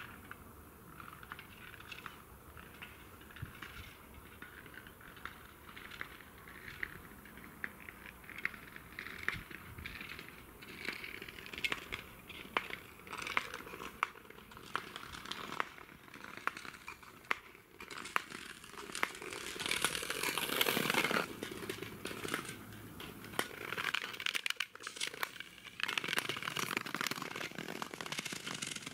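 Natural ice crackling and ticking, with swelling hisses like skate blades scraping over it, loudest about twenty seconds in and again near the end.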